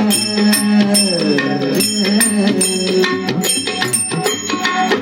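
Devotional bhajan music: a harmonium plays a held drone and a gliding melody, with tabla, and bell-like small cymbal strokes ring on a steady, fast beat.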